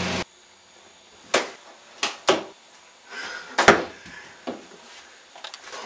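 Four sharp thumps at irregular intervals, then a few softer knocks: fists punching a baby doll lying on the floor.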